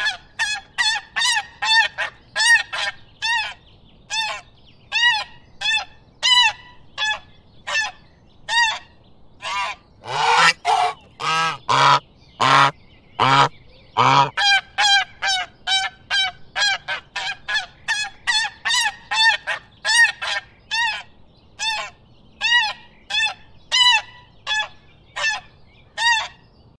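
Geese honking in a long series of short, nasal calls, about two a second. About ten seconds in, a few louder, longer and deeper honks come, then the quicker honking resumes.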